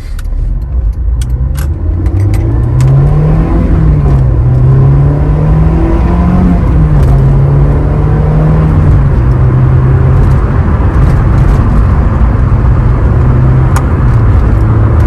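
Honda S2000's inline-four engine under way, its note climbing with acceleration and dropping back several times as gears are changed. Over the last few seconds it settles to a steadier, lower note.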